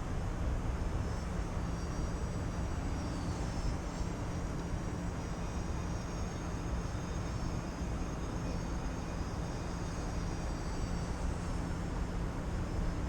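Radio-controlled model airplane's motor and propeller running steadily in flight, with a faint high whine, while wind rumbles on the microphone.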